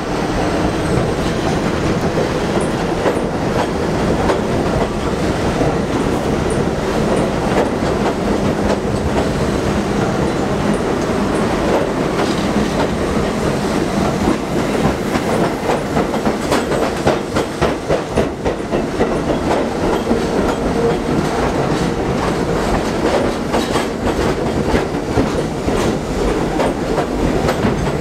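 A train of retired R42 subway cars rolling past on steel rails, with a steady rumble and the clickety-clack of wheels over rail joints.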